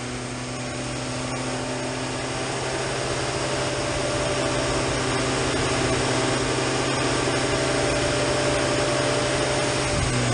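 Ford Focus ST170's 2.0-litre four-cylinder, running on individual throttle bodies, idling steadily on a rolling-road dyno; a constant hum that grows louder over the first several seconds.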